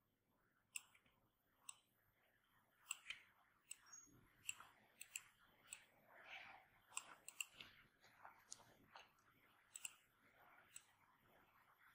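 Faint computer mouse clicks, irregular and scattered, about fifteen over the stretch, made while selecting and dragging objects.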